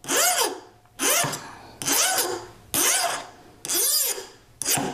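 Hand metal file rasping across a Foredom anvil point, rounding off its sharp edges: six strokes, about one a second, each with a tone that rises and then falls in pitch.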